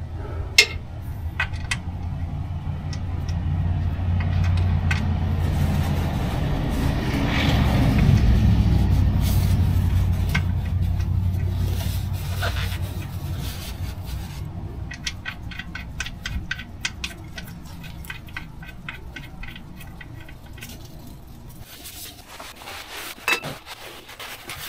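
A motor vehicle passing by: its engine rumble grows louder, is loudest about eight seconds in, then slowly fades away. Scattered sharp clicks come through, and in the second half there is a run of quick, even ticks.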